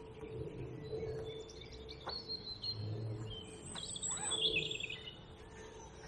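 Wild birds singing and calling in short chirps, whistles and warbles, busiest about four seconds in.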